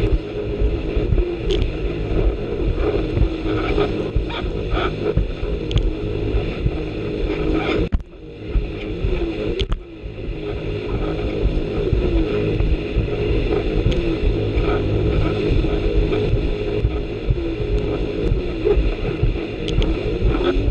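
Jet ski engine running at speed, heard from the rider's seat over choppy water, with occasional knocks as the hull hits the waves. The engine sound drops out briefly about eight seconds in and again near ten seconds.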